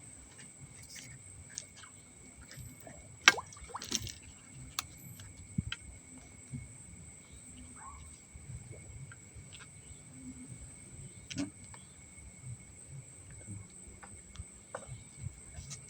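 Night insects keep up a steady high-pitched chirring on two pitches, with scattered sharp clicks and knocks, two louder ones about three and four seconds in, over a low rumble.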